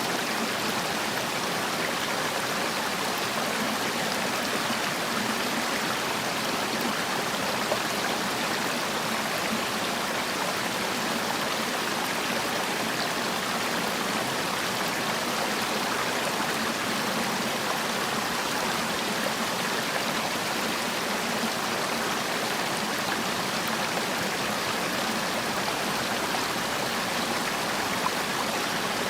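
Mountain stream water flowing over rocks, a steady rushing and splashing that does not change.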